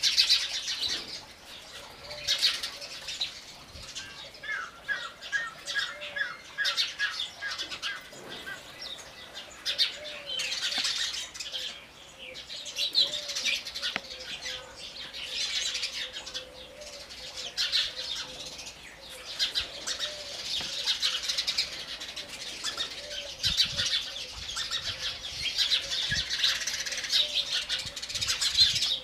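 House sparrows chirping constantly, many birds overlapping, with a quick run of about three lower chirps a second from a few seconds in.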